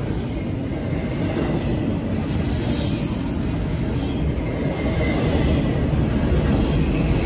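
Double-stack intermodal freight train's well cars rolling past: a steady low rumble of steel wheels on the rails, growing slightly louder.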